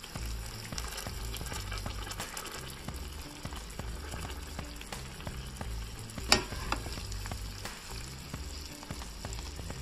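Snapper fillets sizzling in butter and honey in a skillet while a spoon bastes them, with small clicks of the spoon against the pan and one sharper knock about six seconds in.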